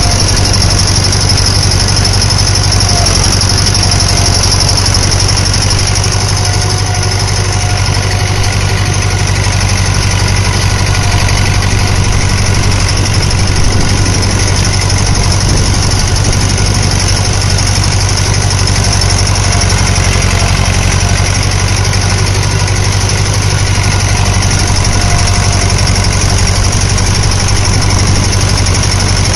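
1964 David Brown tractor's engine running steadily while it pulls a harrow, heard from the driver's seat close to the exhaust stack. Its note holds even throughout, with no revving or change of load.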